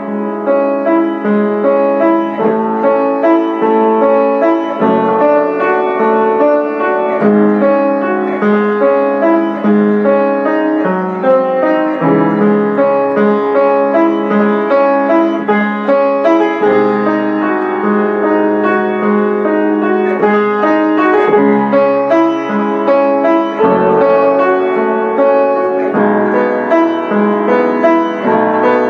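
Solo piano music, a slow classical-style piece of held chords and melody notes.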